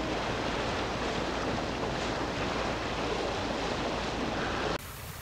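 Steady wind rushing over the microphone with water noise from the bay, cutting off abruptly near the end.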